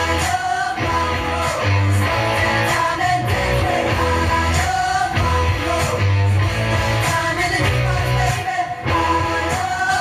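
Rock song with guitar and singing from an FM radio broadcast, played through the speakers of a 1992 Sony FH-B177 stereo system.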